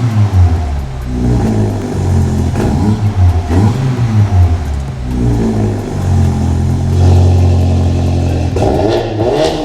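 Subaru WRX turbocharged flat-four engine revving through a stainless valved cat-back exhaust. It gives several quick blips that rise and fall, holds a steadier rev for a few seconds past the middle, then blips again near the end.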